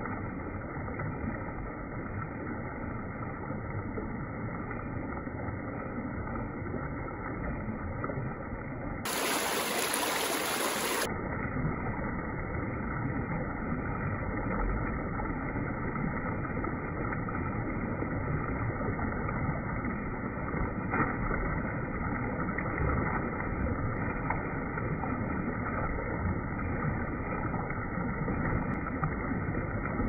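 Steady rush of a shallow, rocky stream pouring over stones and around logs. About nine seconds in the flow changes to a slightly louder stretch of rushing water.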